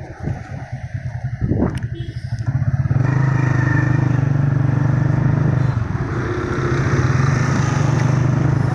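Motorcycle engine heard from the pillion seat, chugging unevenly at low speed for about three seconds, then running steadily and louder as the bike picks up speed in traffic.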